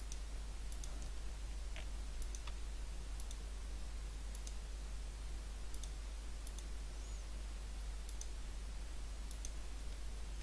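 Computer mouse clicking every second or so at an irregular pace. The clicks are faint, over a steady hiss and low hum.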